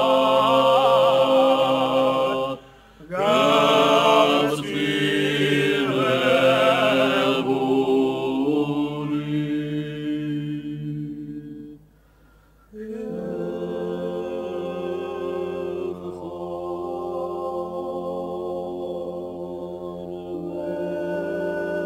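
Choral singing in held, sustained notes. It breaks off briefly about three seconds in, then again around twelve seconds in, before the voices come back in.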